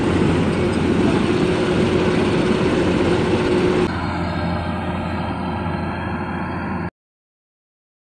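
Rice combine harvester running in the field, its engine and header making a steady machine drone with a constant hum. The sound drops a little about four seconds in and cuts off abruptly near the end.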